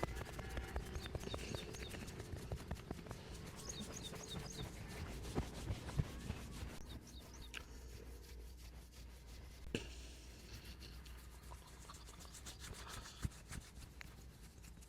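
Hands rubbing and kneading skin in a massage, with many quick light taps throughout and a couple of sharper slaps about five and six seconds in. The rubbing grows softer after about seven seconds.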